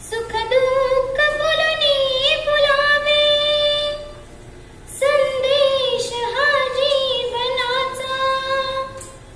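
A young girl singing a Marathi song solo, with no accompaniment. She sings two long phrases with held, wavering notes and a short breath between them about four seconds in.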